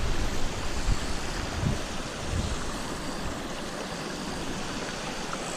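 Steady rush of water flowing in at a stream inlet, with wind buffeting the microphone for the first moment.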